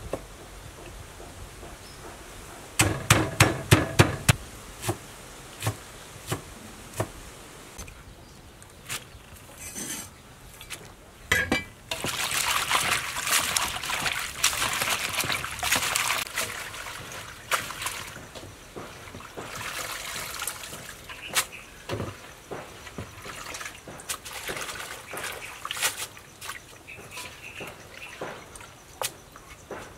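Hands washing leafy greens in a steel basin of water: splashing and sloshing in spells, with scattered clicks and a quick run of loud knocks about three seconds in.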